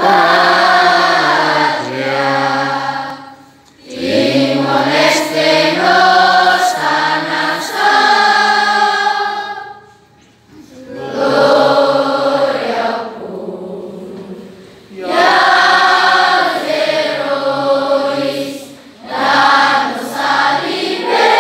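A large group of students singing together in unison, in sung phrases of several seconds with short pauses between them.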